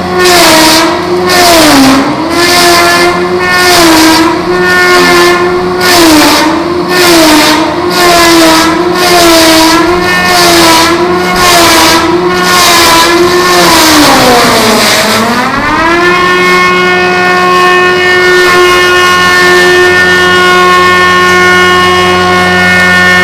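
Homemade log round-shaping machine running under load. Its motor whine sags in pitch just under once a second, with a rasp each time, as the cutter works the turning log. About 14 seconds in it bogs down deeply, then recovers to a steady, even whine.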